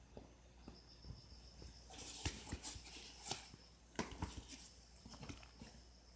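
Lowa Taurus GTX Mid hiking boots making a strange clicking noise with the wearer's steps, loudest in two clusters about two and four seconds in; the uploader treats the noise as a defect of the boot.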